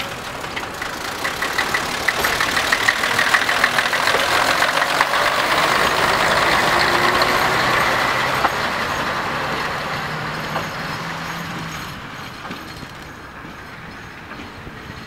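Diesel engine of a Nanbu Jukan Railway KiHa 10 railbus working as the railcar pulls away along the track. The sound swells for several seconds, with a brief rise in engine pitch, then fades steadily as the railbus moves off.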